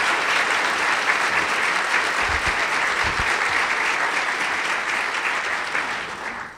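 Audience applauding: dense, steady clapping from a seated crowd that dies away near the end.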